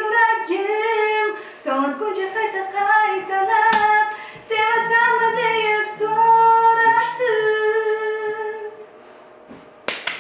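A woman singing unaccompanied, one voice with long held notes and slides between them, stopping about a second and a half before the end; a sudden noisy sound breaks in right at the end.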